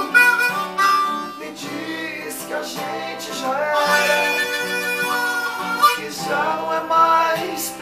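Acoustic guitar strumming together with a harmonica in a blues-folk song, with a man singing over them.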